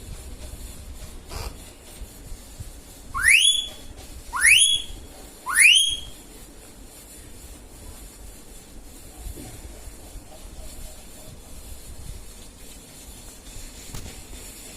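Indian ringneck parrot giving three short, rising whistled calls about a second apart.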